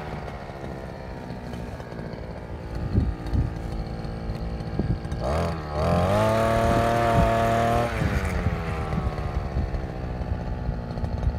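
A brush cutter engine driving a mini tiller (rotavator) attachment drops from high revs to a low idle, with a few sharp knocks about three seconds in. About five seconds in it revs up steeply, holds high for about two seconds, then falls back toward idle.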